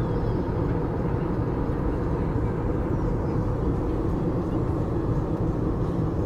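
Steady cabin noise of an Airbus A320neo airliner in flight: the even rumble of its engines and airflow heard from inside the passenger cabin.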